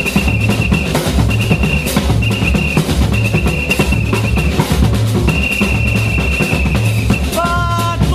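Samba batucada music: driving drums with a steady low bass-drum pulse, over which a whistle blows long, repeated blasts. Near the end a sustained pitched chord comes in.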